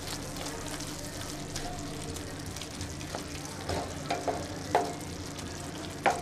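A wooden spoon stirring soft, cooked-down tomatoes in a nonstick pan over a gas flame, with a low steady sizzle. From about halfway through come several short scrapes and knocks of the spoon against the pan, the last one near the end.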